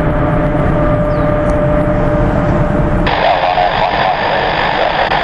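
Boeing 777 jet engines heard from the ground as the airliner climbs away after takeoff: a steady low rumble with a thin steady whine. About three seconds in the sound changes abruptly, the low rumble dropping away and a rougher, higher noise taking over.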